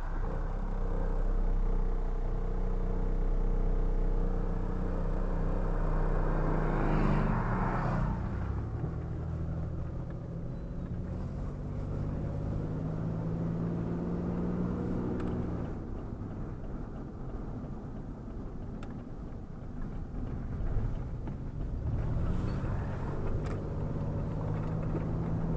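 Truck engine and road rumble while driving. The engine note climbs slowly as it gathers speed, then drops, twice over.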